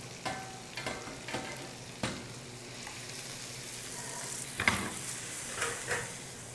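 Spaghetti tossed into a hot frying pan with bacon, cherry tomatoes and parsley, sizzling steadily, with a few short knocks of pan and utensils.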